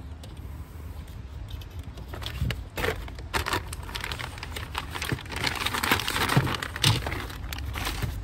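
Plastic packaging bag crinkling and rustling, with scattered handling clicks, as a new plastic kidney grille is lifted out of its cardboard box. The crinkling gets busier after the first couple of seconds.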